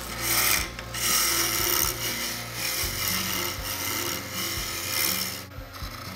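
A Robust wood lathe spinning a hardwood stool leg while a turning tool cuts the tenon: a steady hiss of shavings being peeled off over the lathe's low motor hum. The cutting noise breaks off briefly a couple of times as the tool is eased off the wood.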